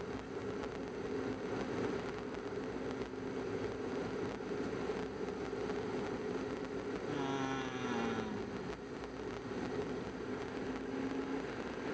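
Steady hum of a moving car's engine and tyres, heard from inside the car. Just past the middle, a pitched tone falls for about a second and a half.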